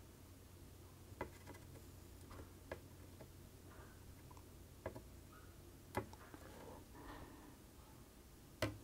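Quiet room tone with a low steady hum and a few faint, irregular clicks from soldering work on a circuit board: the iron tip and solder wire touching the chip pins, the last click the loudest, near the end.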